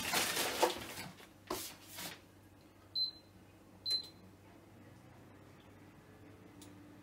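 Two short high beeps, about a second apart, from a glass-top hob's touch controls as the plate is set to its highest level, 9. They follow a second or two of rustling handling noise that fades out.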